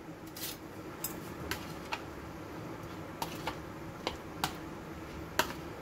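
Sliced button mushrooms being mixed by hand into a thick masala paste in a plastic bowl: scattered light, irregular clicks and taps as the pieces and fingers knock against the bowl.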